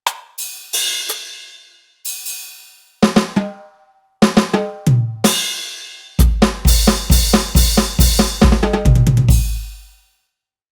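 Roland SPD-30 Octapad electronic percussion pad playing programmed drum presets as separate phrases: cymbal crashes, then drum hits stepping down in pitch like a tom fill, then a run of kick-and-cymbal hits about three a second that stops near the end.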